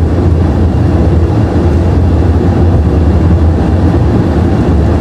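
Airliner accelerating on its takeoff roll at takeoff thrust, heard from inside the cockpit: a loud, steady rumble of engines and wheels on the runway, just before rotation.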